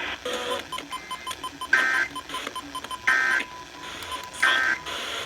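Emergency Alert System end-of-message data tones: three short, buzzy two-pitch digital bursts about a second and a half apart, marking the end of a National Weather Service warning broadcast. Under them runs a faint, rapid ticking at one steady pitch.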